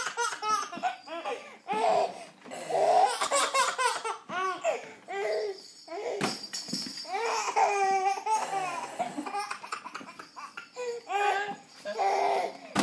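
A young child laughing in repeated bouts of high, pitched giggles.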